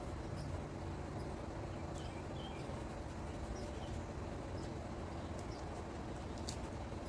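Steady low outdoor background rumble with a few faint, short bird chirps and a few light taps.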